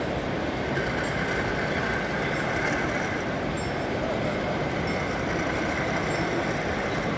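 Model trains running on an exhibition layout: a steady rolling noise with a faint, thin whine above it.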